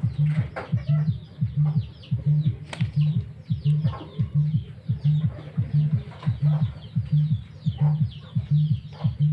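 Birds chirping rapidly in many short falling notes, over a loud low pulse that repeats steadily about twice a second.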